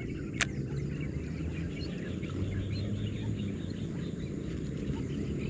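Many short bird calls repeating over a steady low rumble, with one sharp click about half a second in.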